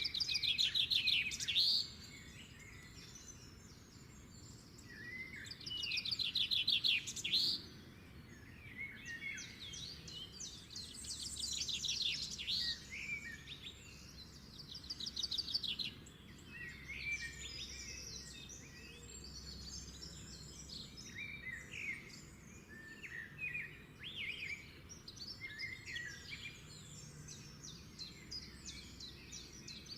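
Birds chirping and singing in short calls and fast trills, with louder bursts of rapid trilling right at the start and again about five and ten seconds in.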